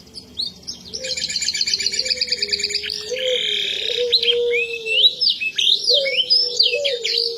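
Canary singing: a fast, buzzing trill, then a string of sweeping whistled notes that rise and fall. This is a song the owner says no longer sounds like a canary's natural song.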